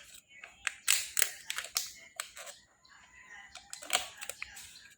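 Irregular clicks, crinkles and scrapes of the Kinder Joy's plastic food half and its small plastic spoon being handled and eaten from, the loudest about a second in and again near four seconds.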